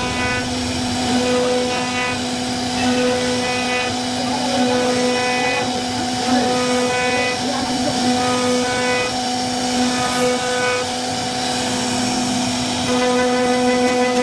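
CNC router spindle running with a steady whine while routing a wooden door panel, its higher tones fading in and out about once a second.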